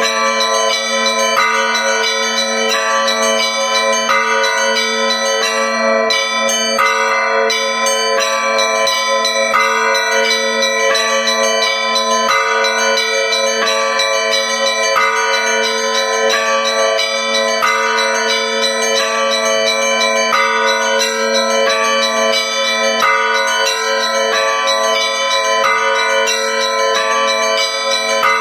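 Russian Orthodox church bells ringing a festive Easter peal. The large bells hum steadily underneath while the smaller bells strike a quick pattern that repeats over and over.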